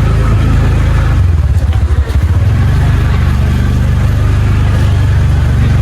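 Benelli motorcycle engine running while riding, loud and steady, with a brief dip about two seconds in.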